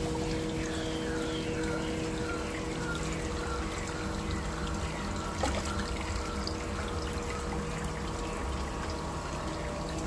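Water trickling and pouring steadily into a koi pond, with a steady hum underneath. A run of short, falling high chirps sounds over the water for about four seconds near the start.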